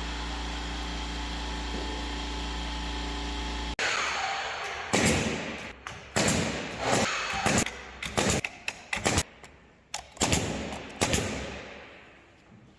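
A power tool runs steadily, then cuts off abruptly a few seconds in. A series of sharp, irregular knocks and thuds follows, like tools striking the panels and frame of a partition being installed.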